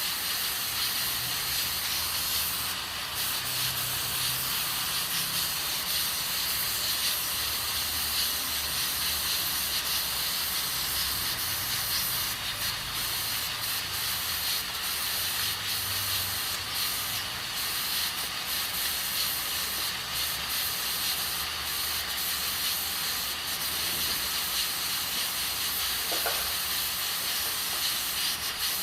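Aluminium pressure cooker hissing steadily as steam escapes under pressure while it cooks beans, with a faint low rumble underneath.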